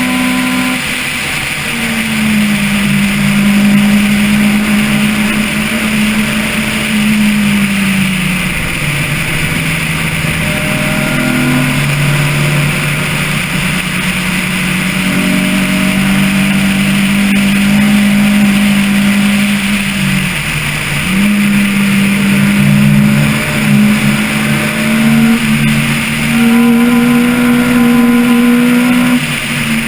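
Car engine heard from a camera mounted on the car, running hard while driving, its pitch stepping up and falling back several times with gear changes and lifts, over a steady rushing noise.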